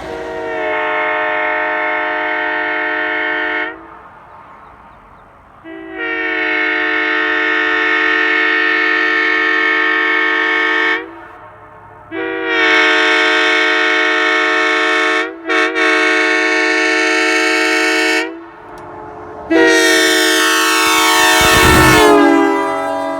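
Holden M3H three-chime locomotive air horn sounding a steady multi-note chord in four long blasts separated by short gaps, the third briefly stuttering midway.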